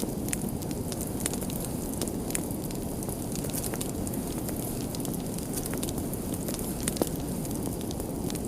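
Wood fire burning: a steady low rushing under frequent sharp crackles and pops, a few of them louder snaps.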